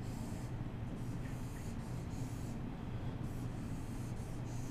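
Dry-erase marker strokes squeaking and rubbing on a whiteboard as boxes are drawn around equations, several short strokes one after another. A steady low hum runs underneath.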